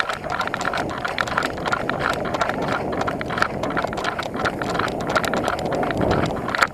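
A player running, with many irregular footfalls and sharp knocks over a steady rushing noise.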